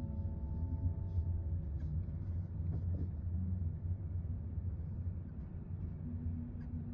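A steady low rumble, with the last notes of a piano piece fading out over the first two seconds.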